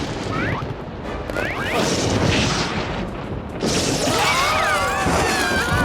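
Cartoon soundtrack: music under loud crashing, rumbling sound effects, with short rising chirps in the first couple of seconds and sliding whistle-like tones later on.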